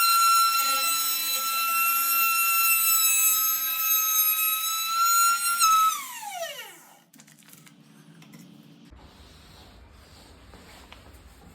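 High-speed electric power tool motor running with a steady high-pitched whine, then switched off about six seconds in, its pitch falling quickly as it spins down to a stop.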